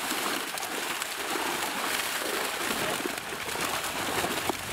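Water splashing and churning as a net full of carp thrashes in the shallows while it is drawn in to the bank.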